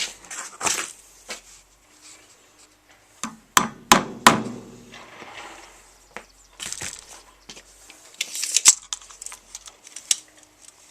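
Wood being handled on a work surface: several sharp knocks, loudest in a quick cluster about four seconds in, with brief scraping and rustling between them.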